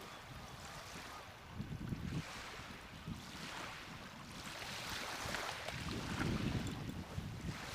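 Wind buffeting the microphone in gusts, over the wash of small waves breaking on the beach, swelling and easing every few seconds.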